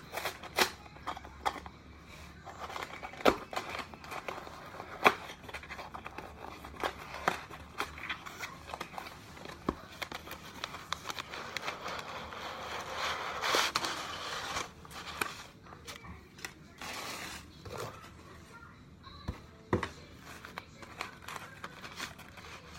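A cardboard shipping box being opened by hand: scattered clicks and knocks of cardboard, with crinkling and tearing of packing material and a longer stretch of rustling about halfway through.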